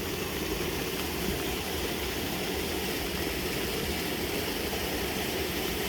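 Steady rushing of flowing floodwater, with no separate splashes or knocks.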